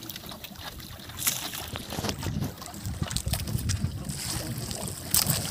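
Water and wind around a small outrigger fishing boat at sea, with scattered light clicks and knocks as fishing line is handled on board.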